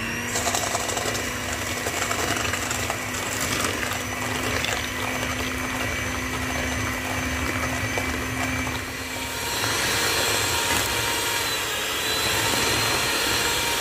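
Electric hand mixer running, its twin wire beaters whisking eggs and sugar in a stainless steel bowl, a steady motor hum. About two-thirds of the way through its note changes and it grows slightly louder.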